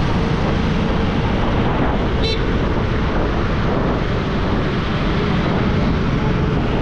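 Steady rush of wind and road noise on an action camera's microphone while riding a scooter at about 40 km/h in city traffic, with a short horn toot about two seconds in.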